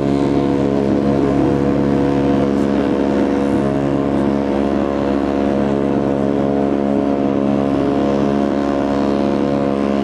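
Cruise ship's horn sounding one long, loud, steady blast, several tones at once.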